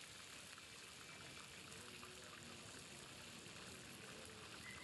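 Fish pieces deep-frying in a pan of hot oil: a faint, steady sizzle with many small pops and crackles.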